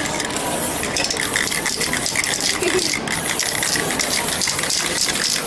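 Aerosol spray-paint cans hissing in a series of short bursts as paint is sprayed.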